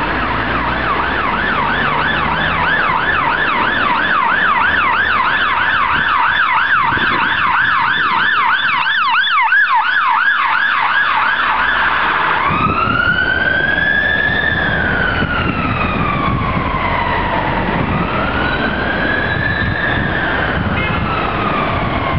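Ambulance siren on a fast yelp, about three rises a second. About twelve seconds in it switches to a slow wail, each long rise and fall taking several seconds, as the ambulance passes and moves away through traffic.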